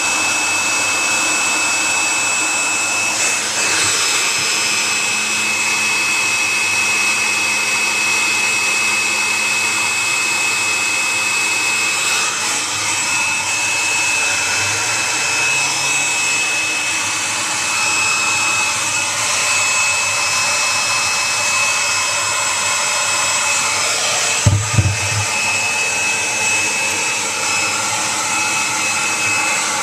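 Hand-held hair dryer running steadily: a constant rush of air with a thin high whine, blowing into a refrigerator to thaw its frozen drain. A short low thump about 25 seconds in.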